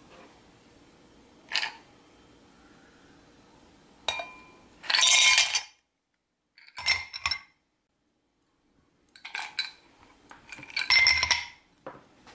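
Ice cubes clinking and clattering into glasses, first a glass mug and then a faceted glass tumbler, in two main bursts about five and eleven seconds in with scattered single clinks between.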